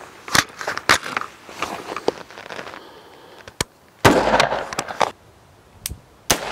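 A single shot from a 16-inch .223 carbine firing a 55-grain FMJ round, about four seconds in, with its report ringing out for about a second. A few sharp clicks come before it.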